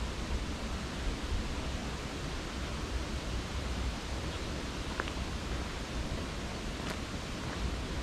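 Steady, hiss-like outdoor background noise with a low rumble underneath, with two faint brief ticks about five and seven seconds in.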